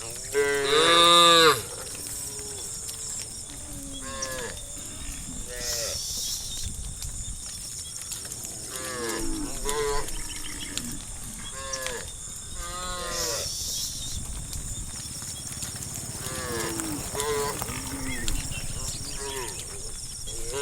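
Several cattle mooing, one call after another every second or two, at different pitches; the loudest moo comes about a second in.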